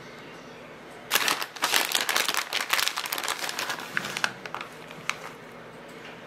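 Plastic bag of shredded cheese crinkling as a hand reaches in and grabs a handful: dense crackling for about three seconds, then a few scattered crinkles.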